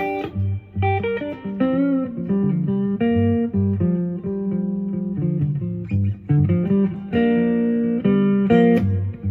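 Epiphone Sheraton semi-hollow electric guitar playing a slow blues in G: single plucked notes, some bent up in pitch, over low bass notes.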